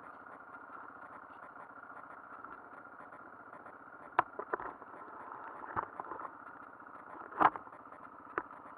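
KYMCO MXU 300R quad's single-cylinder engine idling steadily with an even pulse. Several sharp knocks come over it from about four seconds in, the loudest near seven and a half seconds.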